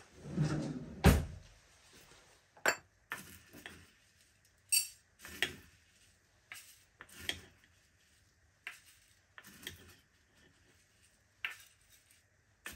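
A short sliding rumble ending in a sharp knock about a second in. Then a string of short metallic clinks and scrapes as a metal spoon scoops rolled oats from a glass jar into a stainless steel measuring cup.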